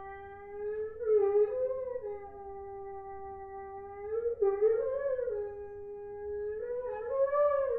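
Unaccompanied French horn holding a long, steady note. Three times it breaks into a brief wavering figure that bends a little higher and settles back onto the held note.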